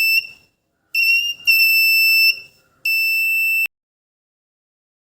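Piezo buzzer of a homemade BC547 transistor fire alarm circuit sounding a high-pitched steady tone in several uneven beeps. It cuts off about three and a half seconds in.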